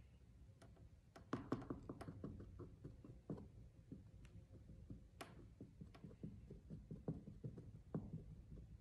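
Faint, irregular small taps and clicks of a small spoon scooping wet paper pulp from a palm and dabbing it onto the painting, starting about a second in, over a low steady hum.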